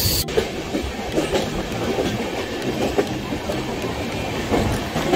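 Train running on the rails: a steady rumble with irregular clacks and knocks from the wheels.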